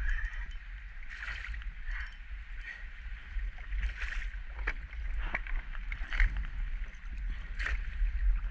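A hooked snook thrashing at the surface beside a kayak, throwing a series of irregular splashes about a second apart, over water lapping and a steady low rumble.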